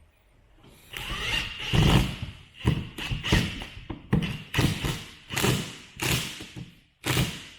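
A quick series of about a dozen heavy thuds and knocks, roughly two a second, starting about a second in.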